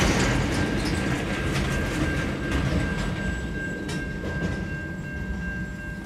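Tail end of a freight train rolling past: the boxcars' wheels rumble and click over the rails, fading away as the last wagon goes by, with a thin steady high whine underneath.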